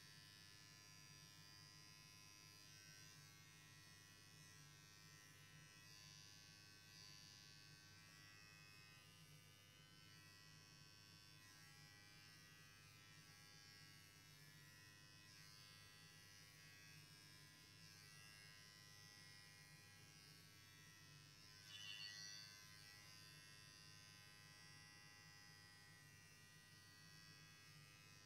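Electric pet hair clippers buzzing faintly and steadily as they shave a Persian cat's long fur, with one brief, louder sound about three-quarters of the way through.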